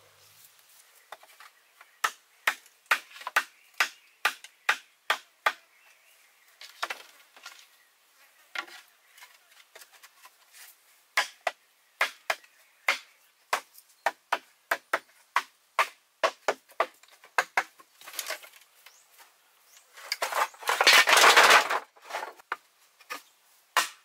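Sickle knife chopping green bamboo: runs of sharp strikes, about two a second, with pauses between the runs. Near the end comes a louder rough noise lasting about two seconds.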